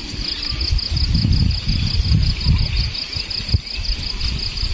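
Insects chirring in a steady, rapidly pulsing trill, over uneven low sloshing and rumbling as a collapsible net shrimp trap is drawn up through the shallow pond water, with a sharp click about three and a half seconds in.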